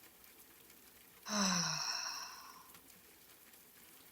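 A single audible sigh breathed out through the open mouth, starting about a second in: a short voiced note falling in pitch, trailing off into a breathy exhale.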